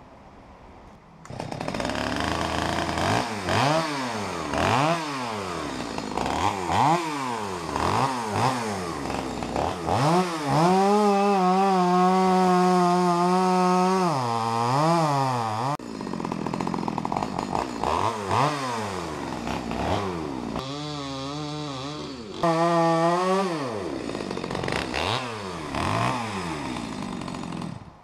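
Gas chainsaw revved up and down again and again, with two stretches held at steady high speed for a few seconds as it cuts into the trunk of a large tree being felled. It comes on about a second in and cuts off near the end.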